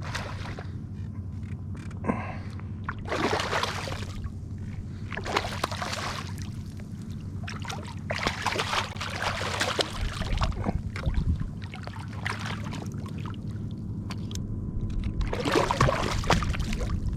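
Steady wind rumble on the microphone, with several louder bursts of water splashing and sloshing, about a second or two each, in ankle-deep bay water. The sound cuts off suddenly at the end.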